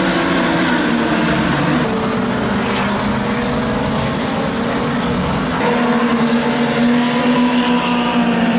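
Engines of several pre-1975 classic saloon racing cars running together as a pack laps a shale oval, a steady mix of engine notes over tyre and track noise. About two thirds of the way in the mix shifts, with one engine note standing out more strongly.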